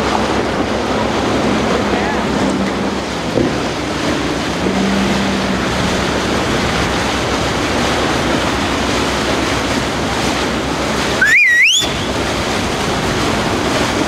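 Steady rush of surf and a sportfishing boat's bow wake, with wind on the microphone. About eleven seconds in, a short shrill whistle rises, wavers and climbs again.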